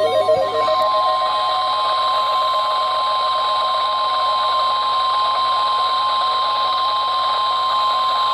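NOAA Weather Radio warning alarm tone: one steady, loud, single high tone near 1050 Hz, held throughout, the signal that wakes alert receivers before a warning message.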